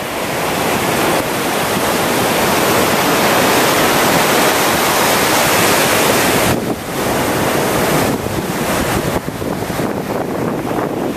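Gulf of Mexico surf washing onto the beach: a long, steady rush of breaking waves that eases about six and a half seconds in, then goes on in choppier surges, with wind buffeting the microphone.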